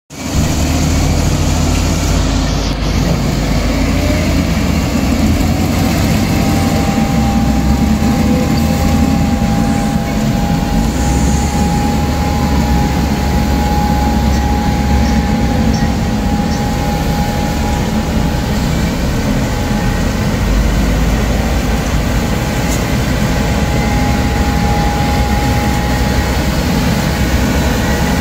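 Dongfeng vacuum sweeper truck running in operation: its engine and suction fan make a steady, heavy low drone, with a thin steady whine over it from about six seconds in.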